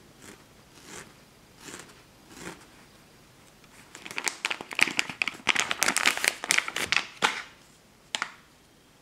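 Hands working loose red wool roving for needle felting. It starts with a few faint, soft scratchy rustles, then from about four seconds in comes a dense, crackly rustling of the fibres lasting about three seconds, and one short rustle near the end.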